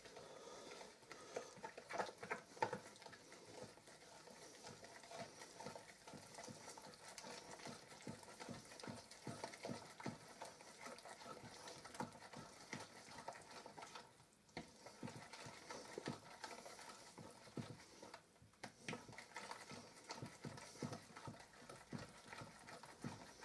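A spoon stirring thick cornbread batter in a ceramic bowl: a faint, steady run of quick stirring strokes that pauses briefly twice.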